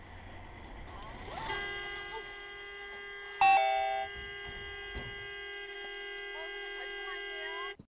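Steady electronic tones at several pitches that cut off abruptly near the end. About three and a half seconds in comes a sudden loud hit, the loudest moment, then a brief two-note chime falling in pitch. A fainter knock follows about a second later.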